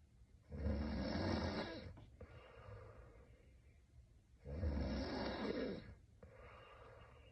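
A sleeping woman snoring: two loud in-breath snores about four seconds apart, each lasting about a second and a half, with quieter out-breaths between them.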